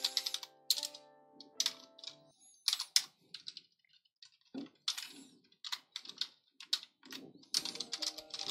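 Typing on a computer keyboard: quick, irregular key clicks in short runs. Soft background music with held notes plays under it during the first two seconds and again near the end.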